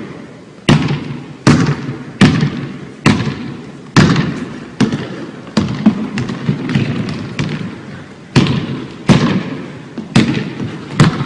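Basketball dribbled on a hardwood gym floor: sharp bounces a little under a second apart, each ringing on in the big hall's echo.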